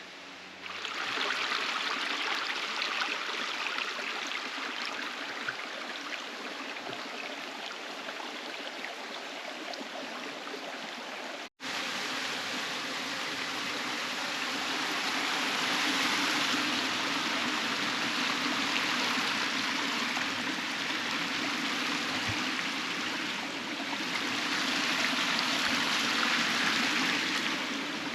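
Stream water flowing steadily. The sound drops out for a split second near the middle, then carries on a little fuller.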